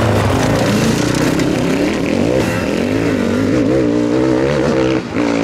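Sidecarcross racing outfits' motorcycle engines running hard on the track, their pitch rising and falling as the throttle is worked, with a brief drop in level about five seconds in.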